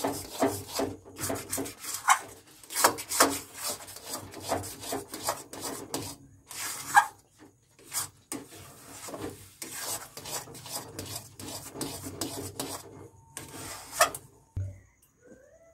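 A metal spatula scraping and stirring a thick semolina, khoya and jaggery mixture against the bottom of a metal kadai, in quick, irregular rasping strokes. The mixture is stirred without stopping to keep it from sticking to the bottom of the pan. The stirring stops about a second before the end.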